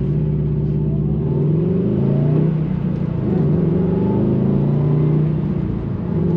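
Subaru WRX STI's turbocharged flat-four through an AWE Touring exhaust, accelerating under way: the engine note climbs, drops at a gear change about three seconds in, then climbs again and levels off near the end.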